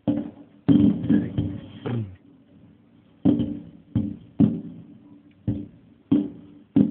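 Fireworks bursting overhead: a string of sharp bangs, each dying away quickly, with a big crackling burst about a second in followed by single bangs every half second to a second.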